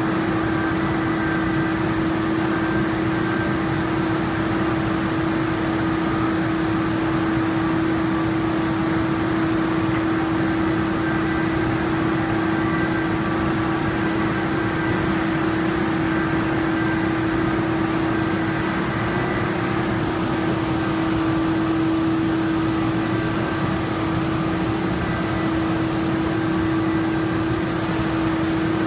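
Steady factory machinery hum, with one strong constant humming tone and fainter high whines over an even noise.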